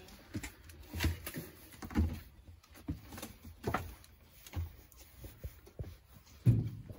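Scattered soft knocks and rustles of handling and movement inside the small interior of a mobile library van, with a louder thump about six and a half seconds in.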